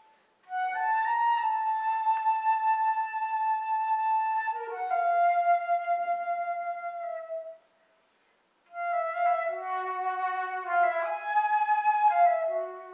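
Solo concert flute playing slow, sustained notes: a long held note, then a lower one that sags slightly in pitch and stops. After about a second of silence, a quicker phrase of stepping notes begins.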